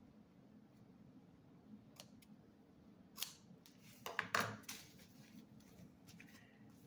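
Pair of scissors: a click as they are taken up, then a quick cluster of snips about four seconds in, trimming the excess sticky-backed velvet hanging over the book's edge.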